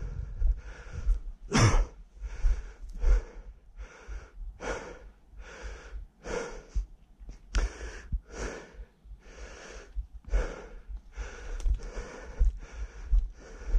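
A man breathing hard and fast while walking, one noisy breath about every three-quarters of a second, with low thumps from footsteps and the body-mounted microphone moving.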